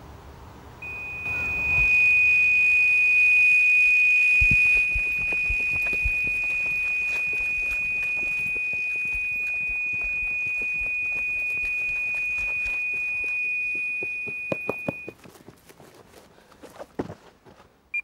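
Electronic carp bite alarm giving one long unbroken high tone for about fourteen seconds, the sign of a fish running off with the line, then a few short beeps at the same pitch near the end. Scattered knocks and thuds sound under it and near the end.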